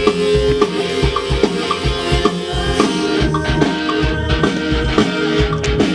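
Rock band playing an instrumental passage: a steady drum-kit beat under sustained instrument notes, with no singing.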